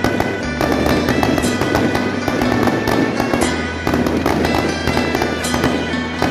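Rapid firecracker crackle played with music from an electronic firecracker cannon, in sections that restart about every three seconds.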